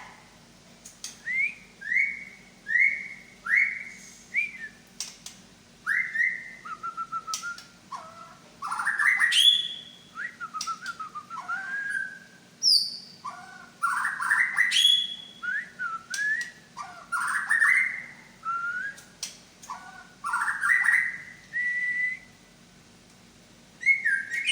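White-rumped shama (Medan murai batu) singing a long run of loud, varied whistled phrases. It opens with a string of short repeated notes, then moves through rising and falling whistles and quick trills, and pauses briefly near the end. This is the bird reeling off its learned repertoire ('bongkar isian').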